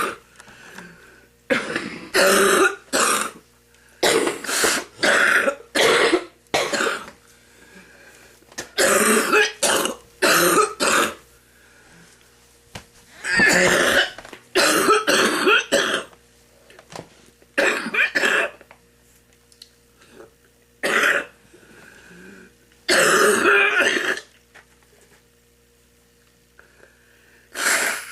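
An elderly woman's smoker's cough, hacking to bring up phlegm from her lungs. It comes in repeated bouts of one to four coughs with short pauses between.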